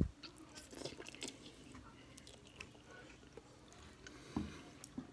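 A man biting off and chewing a mouthful of saucy instant noodles: scattered wet smacking clicks, with a low bump right at the start as the bite goes in.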